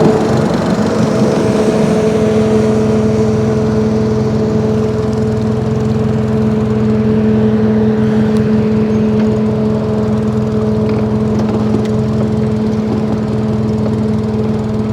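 Small boat outboard motor running steadily at a constant speed, a droning engine note that holds one pitch throughout.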